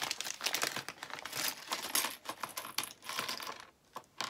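A clear plastic accessory bag crinkling and small sewing-machine accessories (presser feet, bobbins) clicking and rattling against each other and the plastic accessory box, in a quick run of clicks that stops shortly before the end with one last sharp click.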